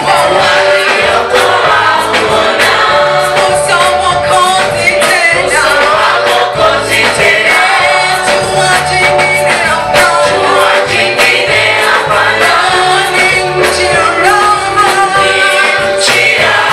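Gospel choir singing a Swahili song in harmony over instrumental backing with a moving bass line.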